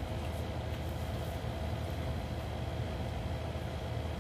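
Steady low mechanical hum with a faint high steady whine over it, unchanging throughout.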